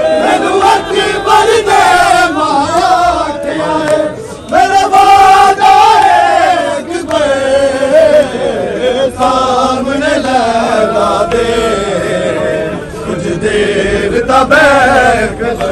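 Large crowd of male mourners chanting loudly together in unison, their voices holding and swinging in pitch as one.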